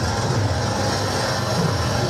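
Live experimental noise music: a dense, steady wall of sound with a strong low rumble under a continuous hiss.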